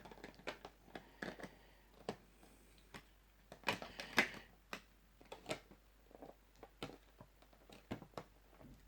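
Irregular light clicks and taps of a plastic vinyl figure, its display stand and its packaging being handled, with a louder cluster of knocks about four seconds in.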